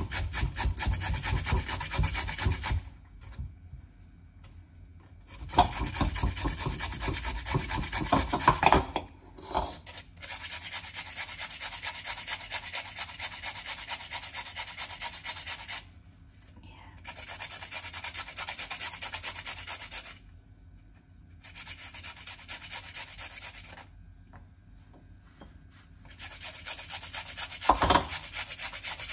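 Raw potato being grated by hand on a flat stainless-steel grater into a bowl: quick scraping strokes in runs of two to six seconds, with short pauses between runs.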